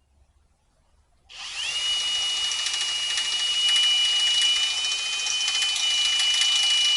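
Electric drill starting about a second in, its whine rising quickly and then holding steady at a high pitch as it drills out an aluminum rivet.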